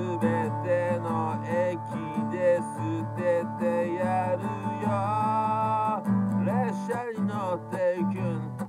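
A man singing to his own strummed acoustic guitar. The vocal holds long, wavering notes for the first several seconds, then moves to shorter sung notes.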